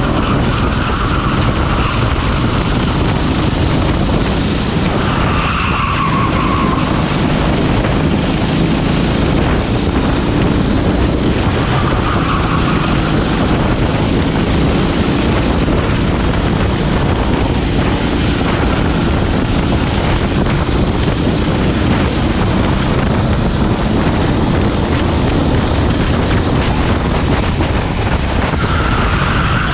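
Rental racing kart engine heard from onboard, running hard and steadily at racing speed through a lap. A few short tyre squeals rise over it as the kart slides through corners.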